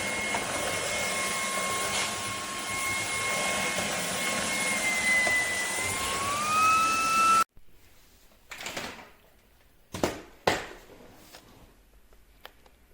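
Shark Detect Clean & Empty vacuum motor running with a steady whine that rises in pitch and gets louder about six seconds in, then cuts off abruptly. A few soft knocks follow in the quiet.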